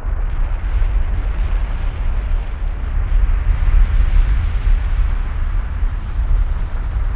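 Kilauea's lava fountain erupting: a continuous deep rumbling roar with a rough hiss over it, swelling slightly about halfway through.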